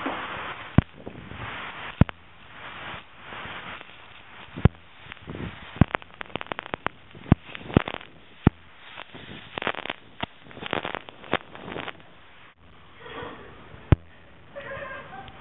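Self-service car-wash pressure wand spraying water in a steady hiss, with many sharp pops and crackles as the spray strikes close to the microphone, densest in the middle and easing off near the end.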